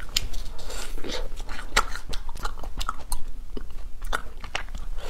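Close-miked biting and chewing of a peach-shaped ice cream bar, eaten with its outer shell still on: irregular crunches and crackles as it is bitten and chewed.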